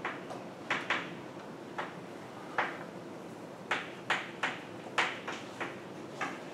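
Chalk writing on a blackboard: about a dozen short, irregular taps and scrapes as the chalk strikes and drags across the board.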